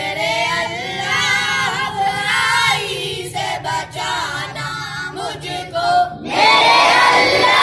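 Schoolboys chanting a prayer (dua) in unison: a small group of leading voices sings a line, then about six seconds in the whole assembly of boys joins in, louder and fuller.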